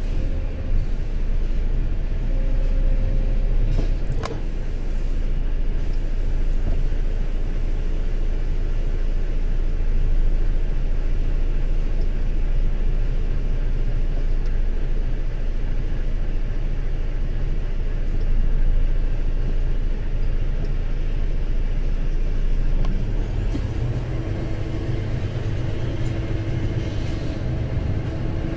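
Truck engine running steadily, heard from inside the cab, with a single sharp click about four seconds in. Near the end the engine note grows stronger, with a clearer low hum.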